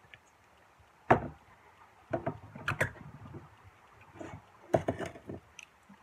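A handful of sharp knocks and clinks of glass on a wooden table as the bourbon bottle and mason jar are handled. The loudest comes about a second in, and the others are spread over the next four seconds.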